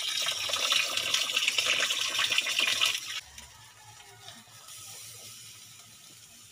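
Fish grilling over an open wood fire: sizzling and crackling, loud for about three seconds, then a quieter steady sizzle.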